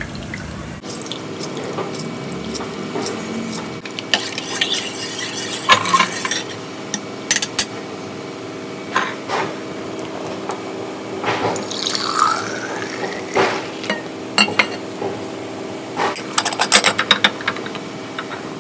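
Juice being poured into a glass jar mug, with clinks and knocks of glass and a pitch that rises as the mug fills about twelve seconds in. A steady low hum runs underneath.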